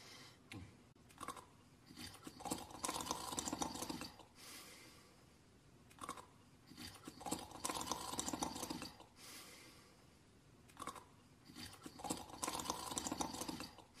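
Cartoon snoring, three rattling snores about five seconds apart, each followed by a softer, breathy exhale and preceded by a short click.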